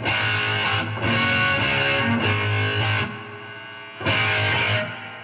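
Electric guitar fitted with a rewound vintage humbucker with an alnico 2 magnet, strummed through an amplifier. Chords ring out for about three seconds and fade, then a new strum about four seconds in rings down.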